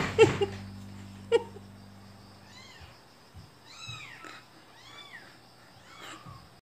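Cat and 24-day-old kittens meowing: a few short, louder meows in the first second and a half, then faint, high-pitched kitten mews that rise and fall, about five times.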